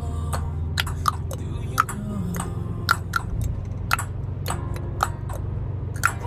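Steady low rumble of a moving car's cabin, with sharp, irregular clicks or taps about two a second.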